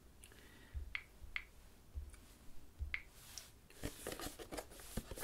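Handling of a smartphone: a few sharp, isolated taps, then from about four seconds in a quick run of small clicks and rustling.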